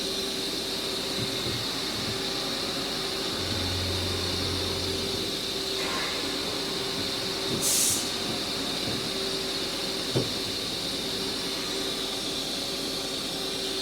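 Haas EC-1600-5X CNC horizontal machining center running with a steady hum and hiss while its Z axis is jogged. A low drone lasts about two seconds near the start, a short burst of air hiss comes around the middle, and a single click follows later.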